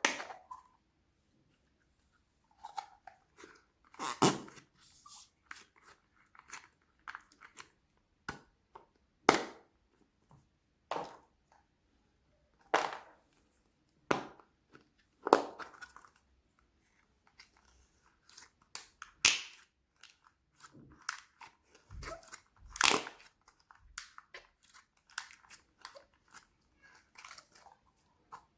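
Irregular crunches and crinkles from toy packaging being handled and torn open, each lasting well under a second, with short gaps between them.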